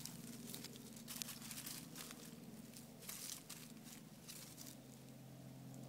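Dry grass and dead leaves rustling and crackling in short, irregular bursts as a terrier roots through them, over a faint steady low hum.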